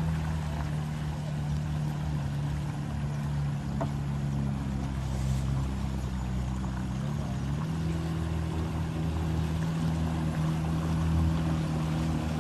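Outboard motor of a small metal boat running steadily under way, with water rushing along the hull. About seven seconds in, the engine note dips briefly, then holds at a slightly different pitch.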